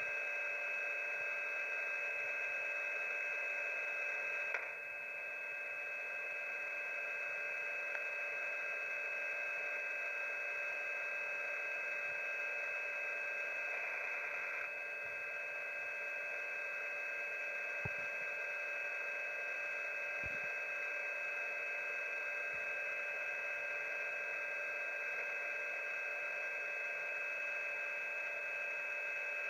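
Shortwave radio receiver tuned to an HFGCS frequency: a steady hiss of band noise with several constant whistle tones held on top of it. A click and a slight drop in level come about four and a half seconds in, and another slight drop about fifteen seconds in.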